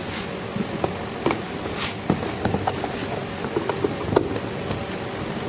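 Screwdriver undoing the screws in an electric kettle's base: scattered small clicks and ticks over a steady background hiss.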